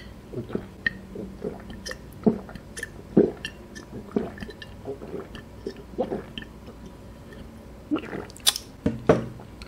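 A person gulping a drink from a glass jar, one swallow about every half second. A few sharper mouth clicks come near the end.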